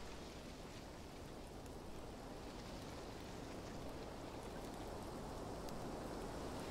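Dense, rain-like hiss with faint crackle, slowly growing louder: artificial sound passed through a living tree by a contact speaker and picked up by a contact microphone on the tree.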